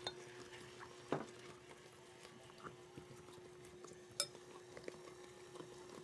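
Stand mixer running with a faint steady hum while its beater works chopped pecans into cookie dough, with scattered small clicks and knocks, one sharper one a little after four seconds in.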